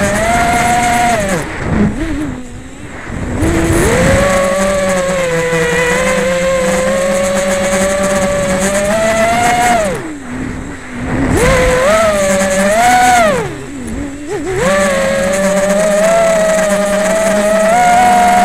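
FPV quadcopter's electric motors and propellers whining. The pitch rises and falls with the throttle, and the whine drops away briefly three times as the throttle is cut.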